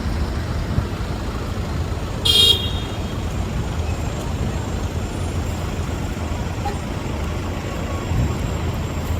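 Steady rumble of city street traffic, with a single short car horn toot about two seconds in.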